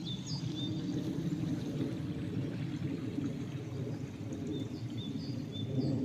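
A small river running steadily under a footbridge, with a few faint, short high bird chirps scattered through it.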